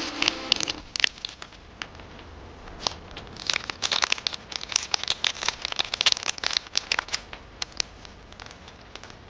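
Plastic packaging crinkling and crackling as it is handled and unwrapped, in irregular bursts of sharp crackles that come thickest in the middle.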